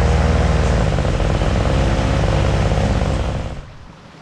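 Small engine of a homemade inflatable speed boat running at speed, its pitch shifting slightly about a second in. About three and a half seconds in it drops away abruptly, leaving the rush of water and wind noise.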